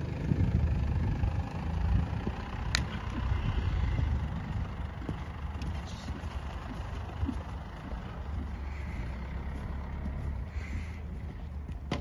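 Wind buffeting a phone's microphone outdoors: a low rumble that swells and fades unevenly.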